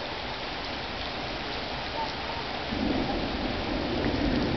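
Steady rain falling, and about three seconds in a low roll of thunder from a distant lightning strike starts up and grows louder.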